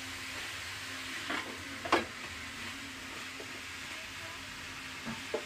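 Pakbet vegetables sizzling in a wok as a metal spatula stirs them, with a steady hiss and two short scrapes of the spatula against the pan about one and a half and two seconds in.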